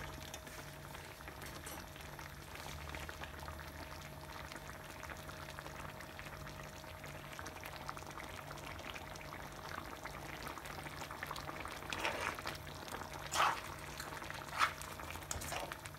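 Creamy curry sauce bubbling at a simmer in a wide pan while a metal spoon stirs through it, over a steady low hum; the sauce is reducing to thicken. A few louder short sounds come near the end.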